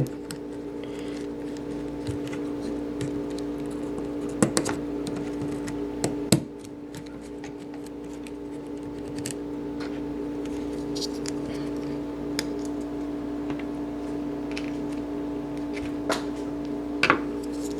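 A few sharp, spaced-out plastic clicks as a freshly lubed Cherry keyboard stabilizer is popped back into place, over a steady hum.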